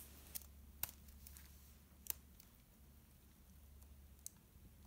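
Plastic wedges of a Rubik's Snake puzzle clicking as they are twisted into new positions: about five short, sharp clicks at uneven intervals, the first few close together, with quiet between.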